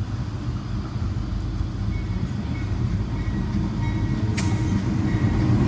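Three NR class GE diesel-electric locomotives at the head of a freight train approaching and passing, their deep engine rumble growing steadily louder. A single sharp click sounds about four and a half seconds in.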